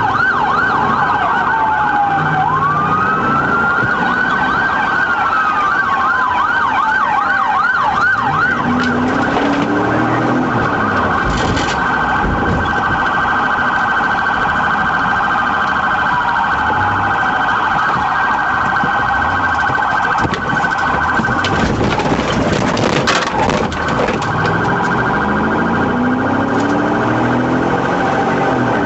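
Police car siren sounding during a pursuit, switching from a fast yelp to a slow rising-and-falling wail, back to the yelp about nine seconds in, then a steady dense siren tone for the rest.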